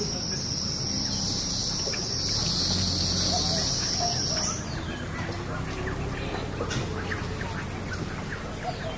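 A high, steady insect buzz that cuts off suddenly about four and a half seconds in, with scattered short bird chirps.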